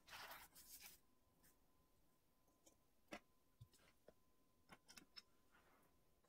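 Faint rustle of a paper towel being spread flat in the first second, then a few light clicks and taps as small containers and a nail charm are set down on it.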